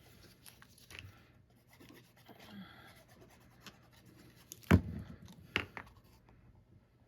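Faint rustling and sliding of paper and cardstock being handled on a work surface, with a sharp tap about two-thirds of the way through and a lighter tap just after.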